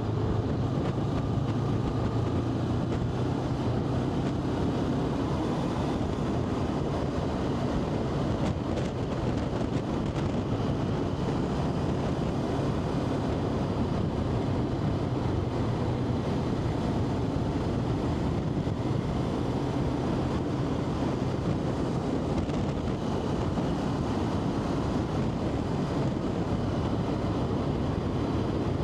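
A vehicle's engine droning steadily while under way on the road, with wind rushing over the microphone.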